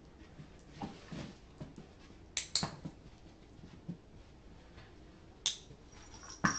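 A few sharp clicks amid soft knocks and light rustling: a quick pair of clicks about two and a half seconds in, and single clicks about five and a half and six and a half seconds in.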